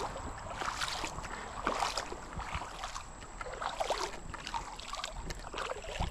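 Shallow creek water splashing and sloshing in small irregular splashes, as a released fish works its way off through the water.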